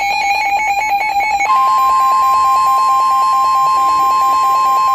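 A weather radio receiver's alert beeper sounding rapidly, about eight beeps a second. About a second and a half in, the steady NOAA Weather Radio warning alarm tone joins it. Together they signal that a warning is about to be read out.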